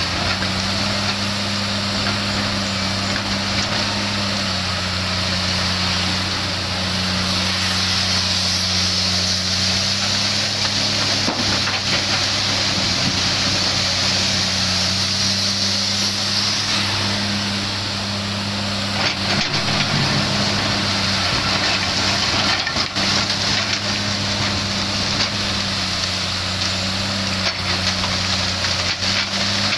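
Komatsu PC300 hydraulic excavator's six-cylinder diesel running under load, its note rising and falling as the hydraulics work the boom and bucket, with a hiss of hydraulic and machine noise. A few short knocks and clatters of coal and the bucket come through, mostly in the second half.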